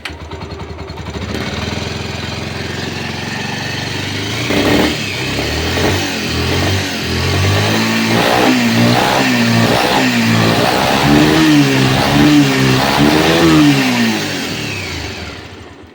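Bajaj Pulsar 150's single-cylinder carburettor engine running after start-up, with a couple of sharp cracks about five and six seconds in, then blipped up and down several times in the second half before it dies away near the end. The cracks are the 'fatak fatak' popping that the mechanic hears at start-up and whose cause he leaves undiagnosed.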